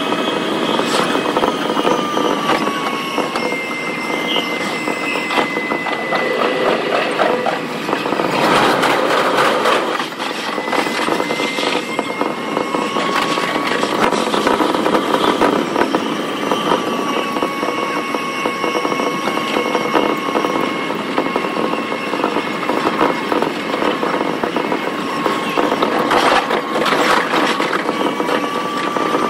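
Electric commuter train running, sped up four times: a steady rush of wheel and track noise with whining motor tones that slowly rise and fall in pitch.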